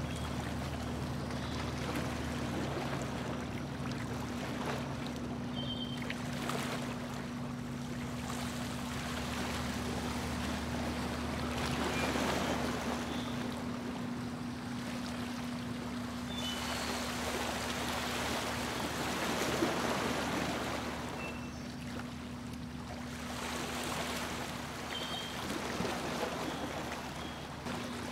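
A boat's motor running at a steady low hum, with water rushing and splashing along the hull, the splashing rising and falling every few seconds.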